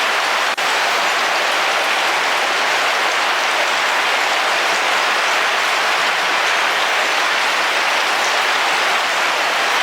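Heavy rain falling steadily on a camping car's roof, heard from inside as an even, dense hiss. The level drops out for an instant about half a second in.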